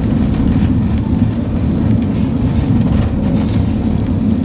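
Steady low rumble of a van's engine, heard from inside the van's rear compartment.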